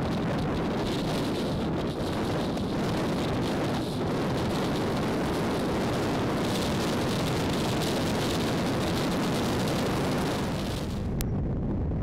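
Steady wind rush on the microphone of a Suzuki Burgman 650 scooter riding in traffic, mixed with its engine and road noise. A single click near the end, after which the high hiss falls away.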